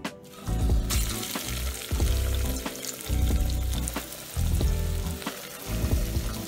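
Breaded whiting fillets deep-frying in hot oil: a steady sizzle and bubbling that starts about a second in as the fish goes into the oil. Background music with a beat plays underneath.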